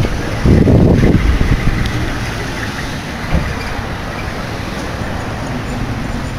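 Road traffic on a busy street, a steady noise of passing vehicles, with a louder low rumble in the first two seconds.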